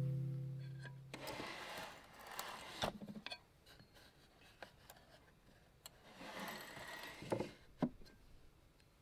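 A small wooden drawer slid open, wood scraping on wood, and hands rummaging inside it. Near the end the drawer is pushed shut with a couple of sharp knocks.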